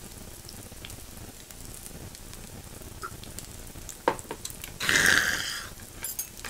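Pork belly slices sizzling steadily on an electric grill pan, with small crackles. About four seconds in there is a sharp clink, then a brief, much louder hissing burst, and a faint high ringing near the end.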